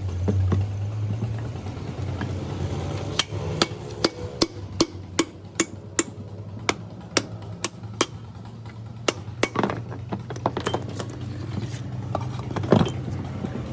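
Hammer blows in a repair workshop, struck in a steady run of about two a second, then more irregularly, with one harder blow near the end. A steady low hum runs underneath.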